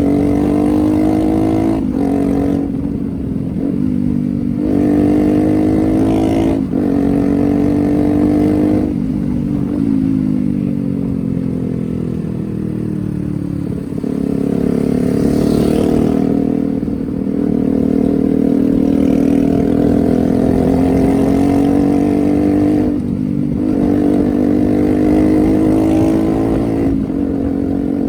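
Yamaha R15's 150cc single-cylinder four-stroke engine pulling up through the gears while riding, its pitch climbing and then dropping sharply at each shift several times, before running steadier and lower for a stretch with a couple more shifts near the end.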